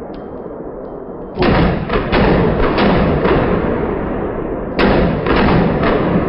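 Glock 17 9mm pistol fired in quick strings: a run of shots about a second in, then three shots in a row near the end, each about half a second apart and ringing out with echo.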